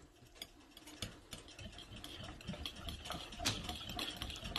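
Wire balloon whisk beating thick yogurt in a glass mixing bowl: quick repeated clicks and scrapes of the metal tines against the glass, faint at first and getting louder after about a second.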